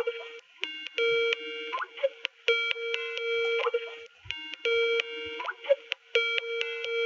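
Skype call ringtone: a short electronic chiming phrase repeated about four times, every couple of seconds, while the call connects.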